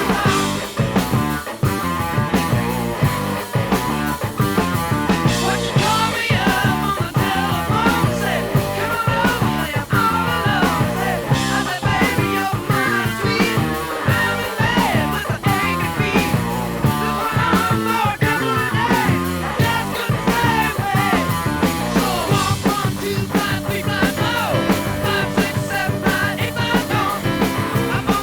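Studio recording of a hard-rock band playing a fast 1950s-style rock and roll song, with electric guitar, bass, keyboards and drums keeping a steady driving beat.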